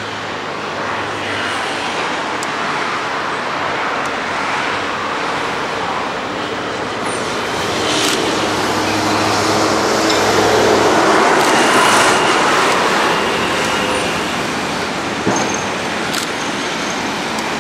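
TEMU2000 Puyuma electric tilting train running past, a steady rumble that swells to its loudest about ten seconds in, with a faint whine over it.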